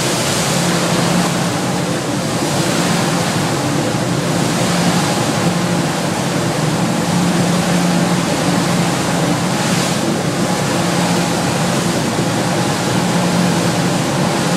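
Viking sportfishing boat running at speed: a steady low engine drone under a loud rush of wind and water passing the hull.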